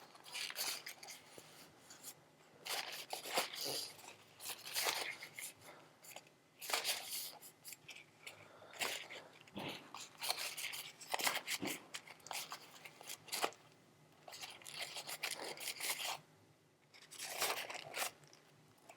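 Pre-moistened cleaning towelette scrubbed against disassembled folding-knife parts to wipe off gunk, in irregular rubbing strokes with short pauses between them.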